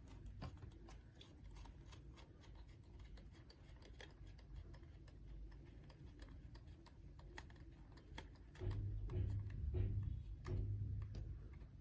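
Plastic phone-holder mount being handled and its quick release buckle rotated and tightened on a handlebar: a string of small, irregular plastic clicks. From about two-thirds of the way in, louder low bumps of handling join the clicks.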